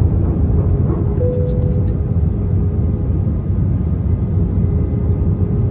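Airliner cabin noise: a steady low roar heard from a seat inside the cabin.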